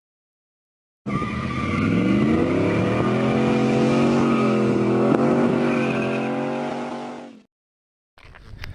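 Car engine revving up and holding at high revs for about six seconds, its pitch rising at first and then wavering slightly, before fading out.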